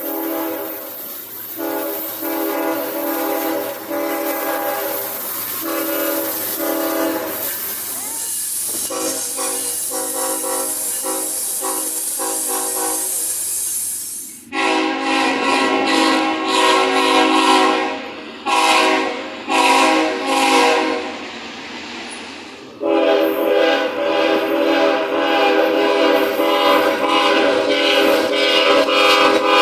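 Locomotive air horn sounding a series of blasts: long held blasts with short breaks, then about halfway a louder horn giving several short toots, then one long held blast near the end.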